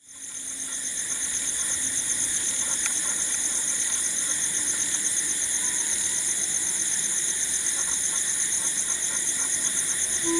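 A steady chorus of chirping insects, a fast, even pulsing high trill that fades in over the first second and then holds level, with a few faint low tones beneath it.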